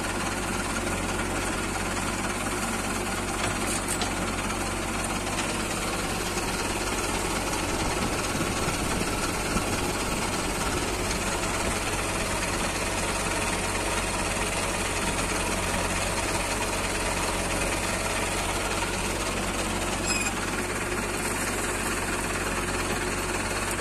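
Diesel engine of a JCB 3DX backhoe loader running steadily.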